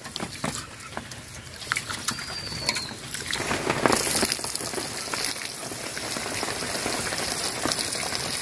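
Raw rice being swished and rubbed by hand in water in a steel bowl, grains and water splashing, then about three seconds in the cloudy rinse water is poured off in a steady stream splashing onto soil.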